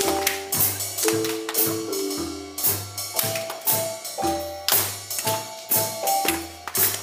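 Music with a steady percussive beat, a bass line and short pitched melodic notes.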